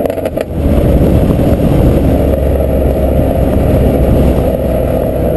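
2012 Ford Mustang's 3.7-litre V6 through an aftermarket exhaust: the engine comes off the throttle at the start with a few quick clicks, then settles into a steady low rumble as the car rolls along at low revs.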